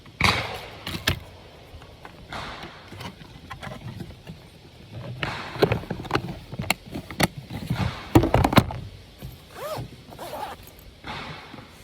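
Range gear being packed away by hand: short scraping rasps with clicks and knocks, the loudest cluster about eight seconds in.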